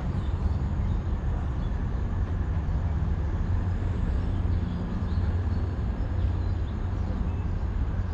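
Diesel train engine running with a steady low rumble.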